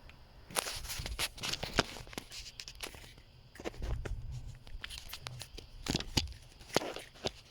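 Irregular plastic clicks, knocks and rustles from hands working the turn signal switch and its wiring connector clip loose from a Nissan D21 pickup's steering column.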